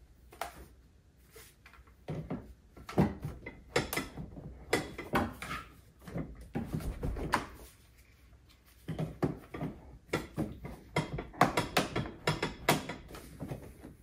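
Irregular clicks, knocks and clatter of a kids' ride-on car's plastic parts being handled and fitted together during assembly, in two runs with a short lull in the middle.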